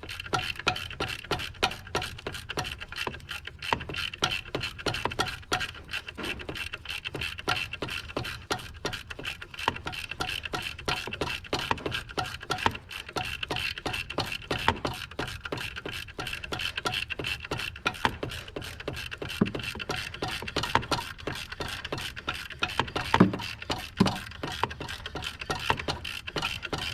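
Ratchet wrench clicking in a rapid, even rhythm as the alternator's adjusting bolt is tightened, with a couple of louder knocks near the end.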